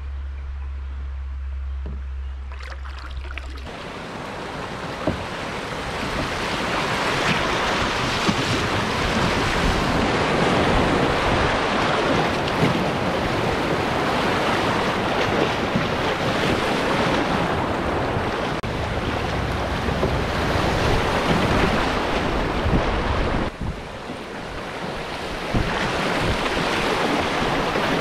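Rushing, splashing white water of shallow river rapids around an open canoe, building up a few seconds in and staying loud, with a brief lull near the end. At first a low wind rumble on the microphone is the main sound.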